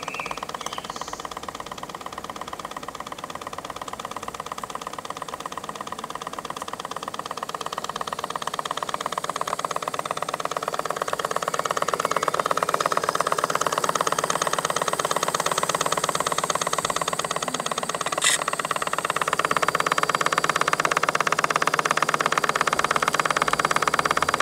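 A 1930s single-cylinder model steam engine running steadily with a fast, even beat, growing louder partway through. There is one sharp click about 18 seconds in.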